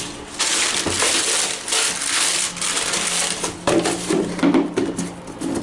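Shoe-box packaging, paper or plastic wrapping, rustling and crinkling as it is handled, in a continuous irregular crackle that stops just before the end.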